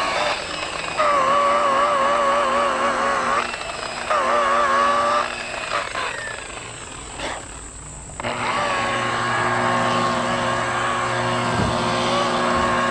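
Electric orbital buffer polishing a jet ski's gel coat hull. Its motor whine wavers in pitch and cuts in and out in short spells. It drops away for about two seconds past the middle, then runs steadily again.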